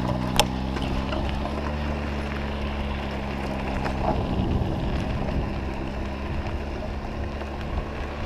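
A motor runs steadily with a low, even hum, and road or wind noise sits over it. A sharp click comes about half a second in.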